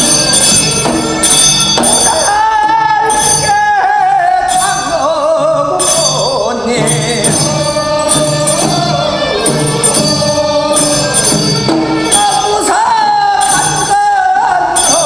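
Men singing a Korean funeral bier song (sangyeo sori) while carrying the bier: the slow song used for the longest stretch of the procession, with a lead voice holding long, bending notes and the singing carried on in between. A small bell rings along with the singing.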